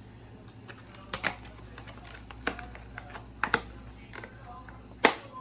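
Garlic cloves being dropped into a blender jar: a scattered series of about eight sharp clicks and taps, the loudest near the end.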